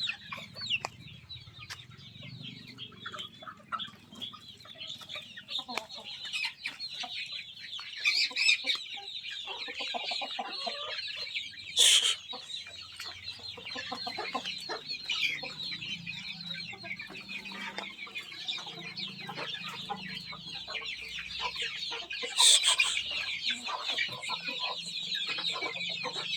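A flock of native free-range chickens and their chicks clucking and peeping in a continuous high chatter, broken by a few sudden louder noises near the middle and towards the end.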